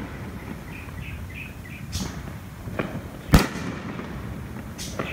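Aerial fireworks bursting: four sharp bangs, the loudest about three and a half seconds in.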